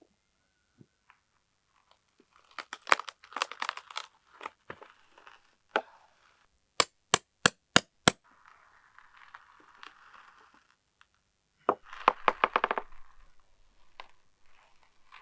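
A series of sharp clicks and knocks: scattered ones at first, then five quick evenly spaced clicks, and near the end a fast rattling run of clicks.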